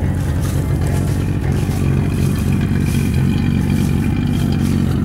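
A 1965 Ford Falcon's original inline six-cylinder engine idling steadily through its exhaust, running smoothly on a freshly rebuilt Autolite one-barrel carburetor.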